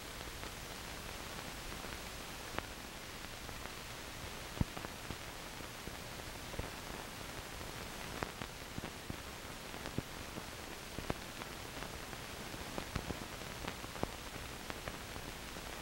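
Steady hiss with scattered clicks and pops, a dozen or so spread irregularly through it: the surface noise of an old film print's blank soundtrack.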